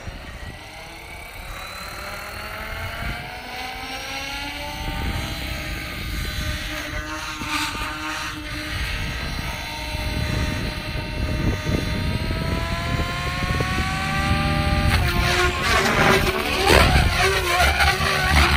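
Electric SAB Goblin 700 RC helicopter with a Scorpion brushless motor spooling up on the ground: a motor-and-rotor whine that rises steadily in pitch and grows louder. About fifteen seconds in, the steady whine gives way to louder, wavering rotor noise as the helicopter lifts off.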